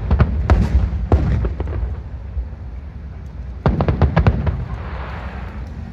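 Fireworks display: aerial shells bursting in a string of booming bangs, with a fast cluster of reports about two-thirds in followed by a brief hissing crackle.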